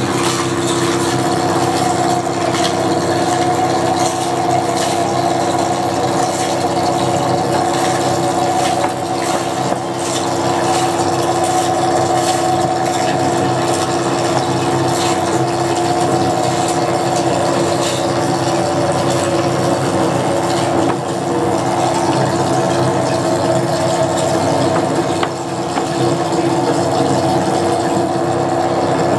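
Live electronic noise music: a steady drone of several held low tones under a dense, crackling noise layer, unbroken throughout.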